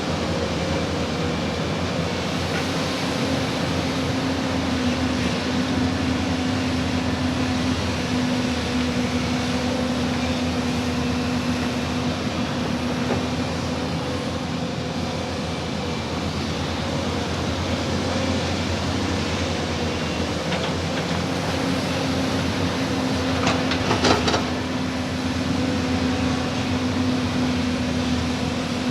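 Excavator diesel engine running steadily with a constant hum, and a brief burst of sharp knocks late on.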